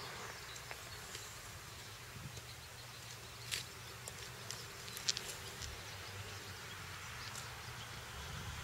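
Faint outdoor background noise: a steady low hum with a few faint short ticks, one about three and a half seconds in and another about five seconds in.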